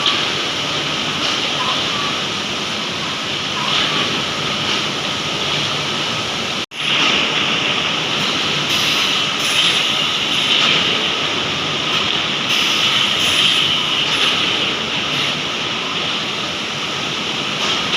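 Steady, loud running noise from MDF board processing machinery (sanders, edger saws and conveyors), with a faint steady whine. It cuts out for a split second about a third of the way through, then carries on.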